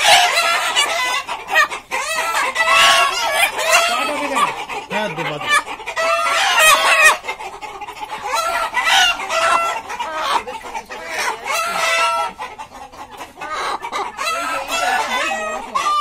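A flock of chickens calling over one another in a constant din of short, overlapping calls, the loudest coming about once a second.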